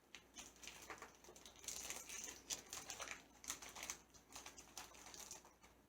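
Faint, irregular clicks and light crinkles of a small plastic mystery pin bag being handled and opened.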